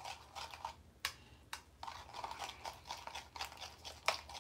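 Spoon stirring a gritty, crunchy mixture in a glass tumbler: a quick run of scraping and crunching strokes, with sharp clinks of the spoon against the glass about a second in, about a second and a half in, and a loudest one about four seconds in.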